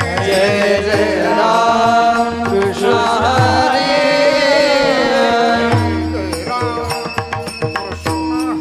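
Devotional bhajan music: a drawn-out, sliding vocal line without clear words, held and bent over several seconds, over steady hand-drum strokes.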